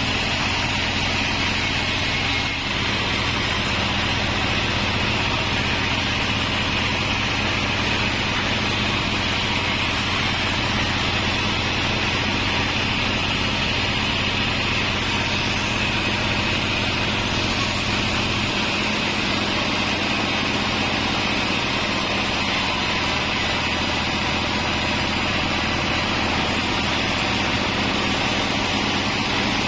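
Pandan Bandsaw36 sawmill bandsaw running steadily, a loud continuous machine drone with a motor hum. The low hum eases about two-thirds of the way through.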